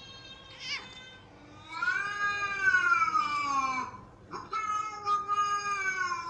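A cat meowing: two long, drawn-out meows. The first rises and then falls in pitch; the second starts about halfway through and is still going at the end.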